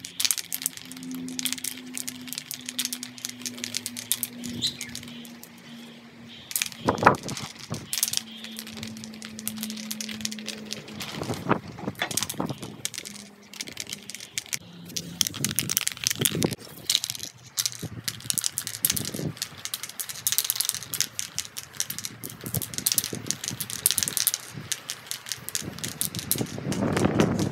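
Aerosol spray-paint can shaken, its mixing ball rattling in quick runs, with spells of hissing spray as the paint goes on.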